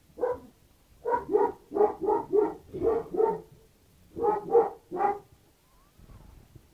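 A dog giving about a dozen short, pitched yelps in quick runs, two or three a second, with a pause near the middle.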